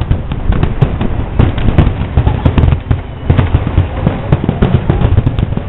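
Fireworks finale barrage: a rapid, continuous run of overlapping aerial shell bursts and bangs, several a second, with a brief letup about three seconds in before it resumes.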